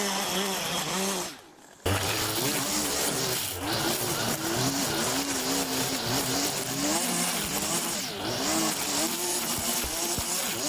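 String trimmer's small engine running under load while it cuts long, thick grass. Its pitch wavers up and down as the line bites into the grass. There is a brief gap about a second and a half in.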